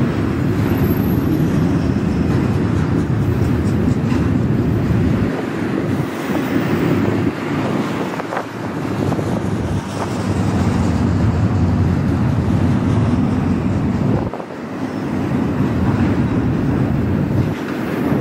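Double-stack container freight train rolling past, its cars rumbling along the rails, mixed with gusting wind buffeting the microphone that swells and dips.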